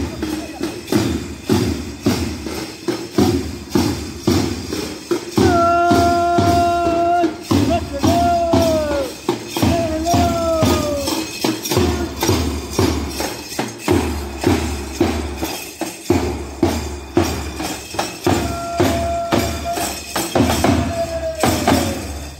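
Background music: a song with a steady tambourine-like beat, and a melody line that holds a note and then slides downward, coming in twice.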